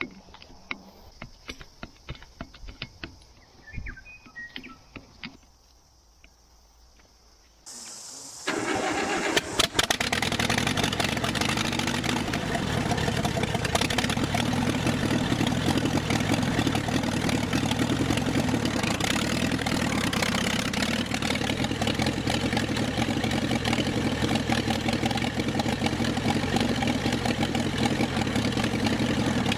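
A few light clicks and knocks, then about eight seconds in the David Brown 25 tractor's four-cylinder petrol engine starts and settles into a steady run.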